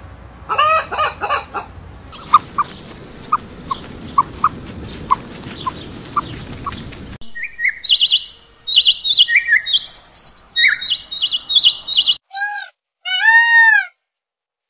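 A hen clucking: one drawn-out falling call about half a second in, then soft single clucks about twice a second. A small songbird then chirps a quick run of high notes, and near the end green peafowl give two loud, arching calls.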